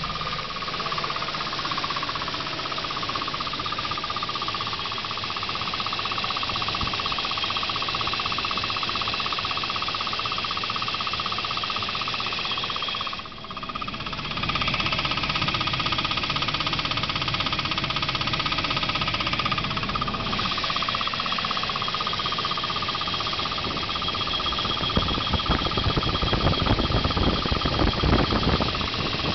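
Volvo B230FT turbocharged 2.3-litre four-cylinder engine idling with a rapid knocking that grows louder near the end. The owner suspects the knock comes from the bell housing/torque converter area, not the valve train.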